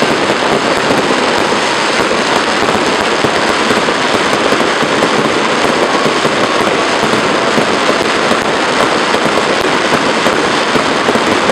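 Fireworks display going off in a dense, unbroken barrage of rapid bangs and crackles at a steady, loud level.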